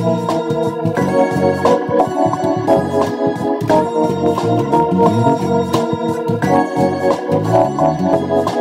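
Electric bass playing a groove, its low notes moving under sustained organ chords.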